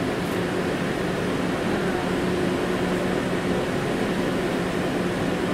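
KTM-31 (71-631) tram running along the track, heard from the cab: a steady rumble of wheels on rail with a steady low hum.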